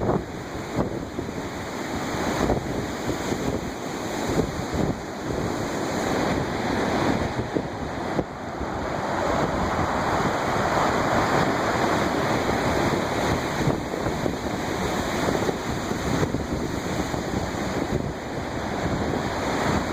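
Waves breaking and washing on the Lake Ontario shore, a continuous rushing that swells and eases, with gusty wind buffeting the microphone.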